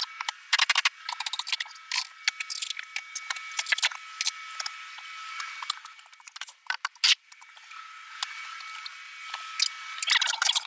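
Hand demolition of a motorcoach shower: irregular sharp cracks, clicks and knocks with scraping between as panels and fittings are pried and pulled apart. A faint steady high tone runs underneath.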